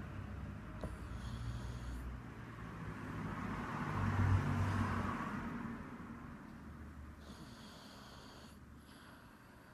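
A sleeping pug snoring in slow, rumbling breaths, the loudest about four seconds in, then fading. A thin high whistle comes twice, at about one second and near eight seconds.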